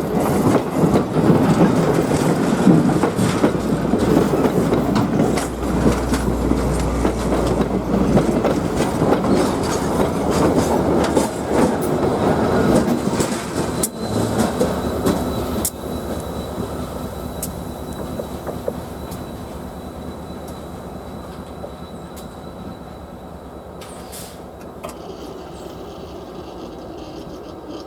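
A passenger train rolling past, its wheels clattering over the rails, with a faint high wheel squeal about halfway through; the sound gradually fades as the train moves away.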